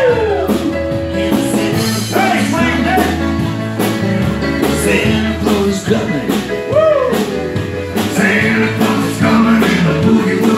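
Live band playing a rock-and-roll boogie Christmas song on electric guitar, keyboard and drums, with a man singing.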